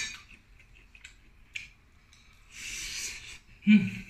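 Mouth sounds of a man eating hot seafood: near quiet with a faint click, then a short airy hiss of breath about two and a half seconds in, and a brief low voiced grunt near the end.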